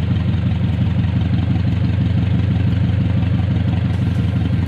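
Second-generation Honda CR-V four-cylinder engine idling steadily while misfiring, a misfire the mechanics trace to two failed ignition coils.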